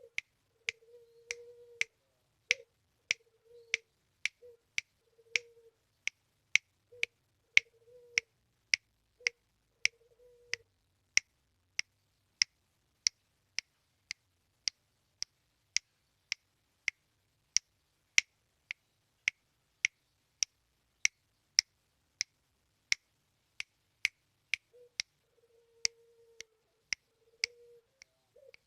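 A puter dove cooing low in short broken phrases during the first third and again near the end. Over it runs a steady series of sharp snapping clicks, evenly spaced at about two a second.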